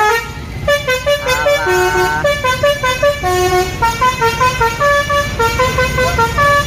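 Bus 'telolet' basuri multi-tone musical horn playing a fast melody of short stepped notes, with a quick rising slide into a held note about a second and a half in. A steady low rumble runs underneath.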